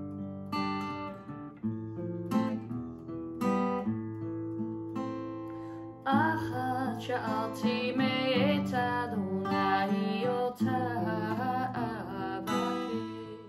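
Acoustic guitar played with ringing, plucked chords; about six seconds in a woman starts singing along with it.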